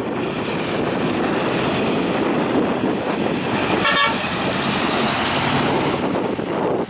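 Large tandem-axle diesel dump truck driving past close by, its engine and tyres running loud. A short horn toot sounds about four seconds in, as the truck is alongside.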